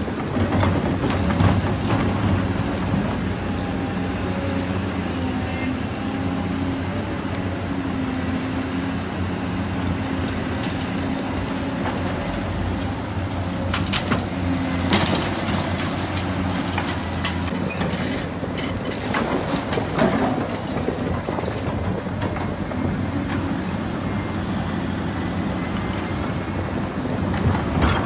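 Heavy diesel engine of construction machinery running steadily, with a few sharp metallic knocks partway through.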